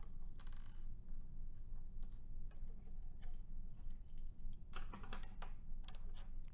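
Small screwdriver working the screws out of the metal shield of a PXIe-4150 power supply module: scattered light metallic clicks and scrapes, a cluster of them about five seconds in, over a steady low hum.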